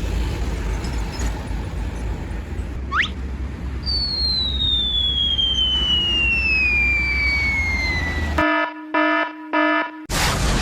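Cartoon-style sound effects over a steady low rumble: a quick rising whistle, then a long falling whistle, then three short blasts of a pitched horn-like tone, and a loud burst of noise starting just before the end.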